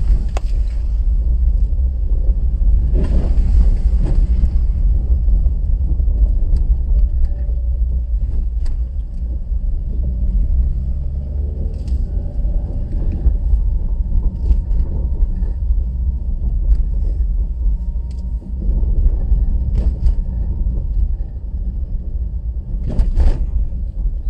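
A car driving along a rough, patched country road: a steady low rumble of road and engine noise, with a few brief knocks scattered through it.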